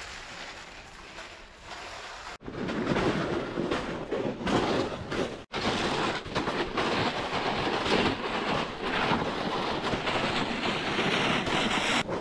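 Footsteps crunching through snow and a plastic sled scraping over the snow as it is pulled, a steady, dense noise. It breaks off sharply twice, about two and a half and five and a half seconds in, and is louder after the first break.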